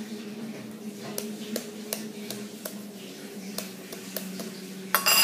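A metal spoon tapping the shell of a raw egg, a string of light clicks about every half second, then a louder sharp hit near the end as the shell cracks.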